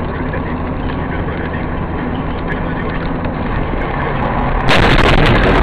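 Steady engine and road noise of a moving car heard from inside the cabin, then, near the end, a sudden loud, harsh burst of noise followed by scattered clicks.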